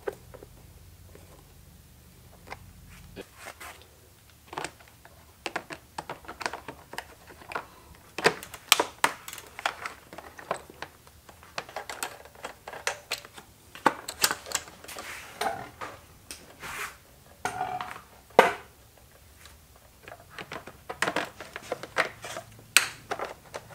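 Irregular clicks, taps and clatter of hand tools and small parts being handled during a hands-on install.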